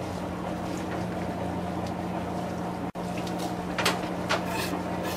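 Chef's knife chopping cilantro on a plastic cutting board: a few short knocks in the second half, over a steady low hum.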